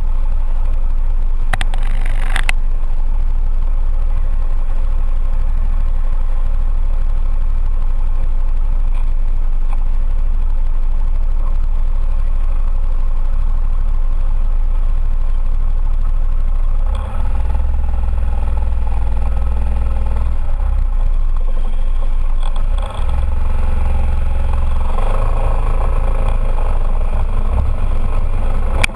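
Scooter engines idling at a stop with a steady low rumble, heard through a handlebar-mounted GoPro housing, with a brief crackle about two seconds in. Near the end the engine revs up as the group pulls away.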